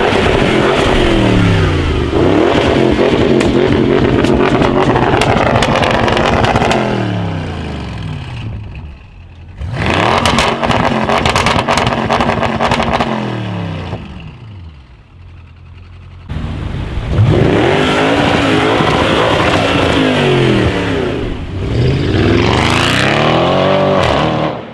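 Audi RS6 C7 twin-turbo V8 with a Milltek exhaust, revving and accelerating hard in three loud runs, its note climbing and falling away between them. Sharp exhaust crackles come about ten seconds in.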